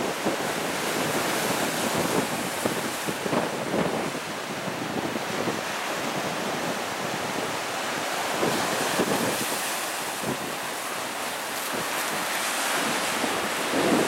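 Ocean waves crashing and washing over boulders on a rocky shore, with wind buffeting the microphone.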